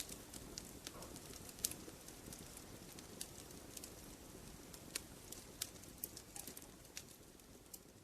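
Wood fire crackling: sharp, irregular pops and snaps over a soft, steady low rush of burning, growing a little quieter toward the end.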